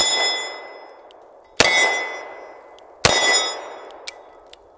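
Smith & Wesson Model 19 Carry Comp .357 Magnum revolver with a ported barrel fired three times, about a second and a half apart, the first right at the start. Each shot is followed by the ringing clang of a steel target plate being hit.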